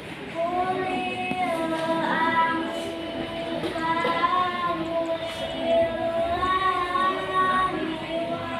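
A young girl's melodic Qur'an recitation (tilawah), beginning about half a second in: long held notes with ornamental turns.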